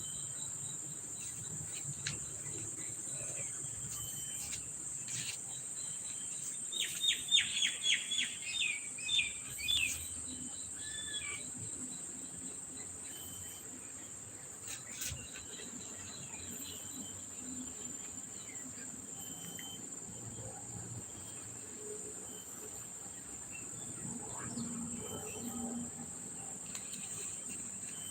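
Steady high-pitched insect chirring in the background, with a bird giving a quick run of about a dozen high chirps some seven seconds in.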